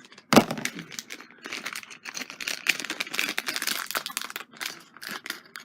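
Lego minifigure blind-bag packet crinkling and tearing as it is ripped open by hand, with a sharp knock just after the start.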